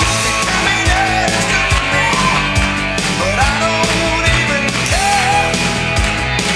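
Rock music with a heavy, steady beat and a gliding lead melody, playing loudly throughout.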